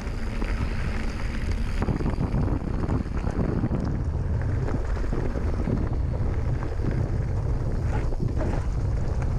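Wind buffeting the microphone of a handlebar camera as a mountain bike rolls fast along a gravel and dirt track, with tyre noise and the bike rattling over the rough ground.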